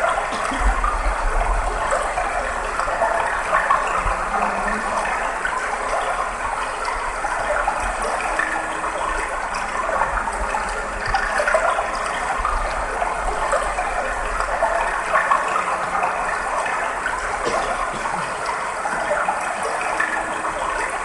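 Steady rushing of running water, an even flowing wash with small fluctuations.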